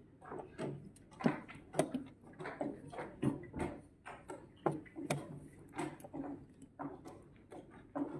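Plastic chess pieces set down on a board and chess clock buttons pressed in quick alternation during a blitz game. It comes through as a run of irregular sharp clicks and knocks, one to two a second.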